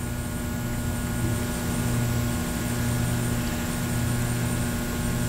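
Steady low electrical hum with a background hiss.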